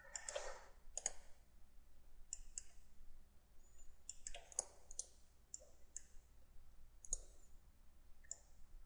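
Computer mouse clicking: faint, irregular single clicks and quick pairs, about a dozen in all.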